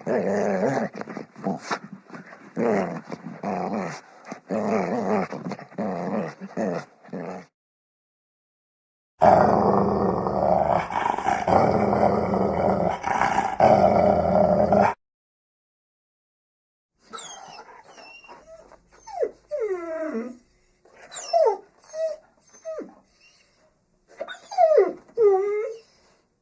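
Separate recordings of dogs: growling for the first seven seconds or so, a louder stretch of growling after a short gap, then high whines and yips that slide in pitch near the end.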